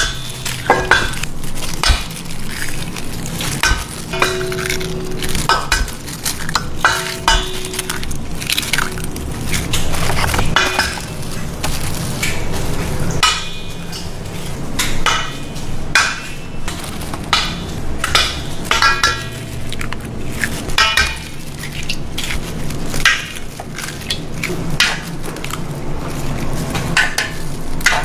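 Eggs cracked one after another against the rim of a stainless steel mixing bowl: irregular sharp taps, many of them followed by a brief metallic ring from the bowl.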